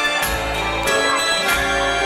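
Recorded dance music playing over the hall's sound system, with held notes, a bass line and a steady beat.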